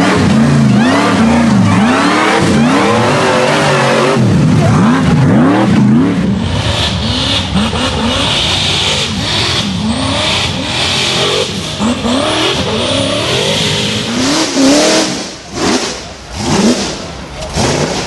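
Rock racing buggy engines revving hard in repeated bursts while climbing, the pitch rising and falling about once a second. A high whine runs through the middle, and near the end the revs come in shorter, choppier bursts.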